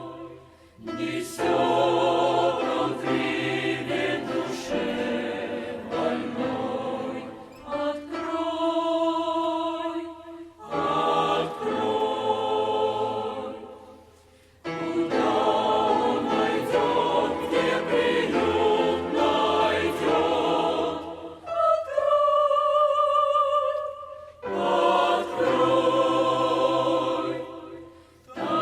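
Church choir singing a Russian hymn, in sung phrases a few seconds long separated by short breaths.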